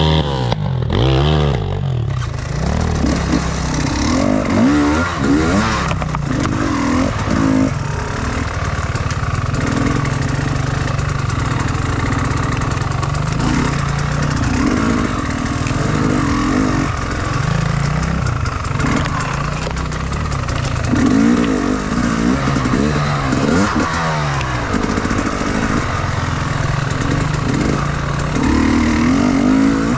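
Enduro motorcycle engine working under load, its revs rising and falling again and again.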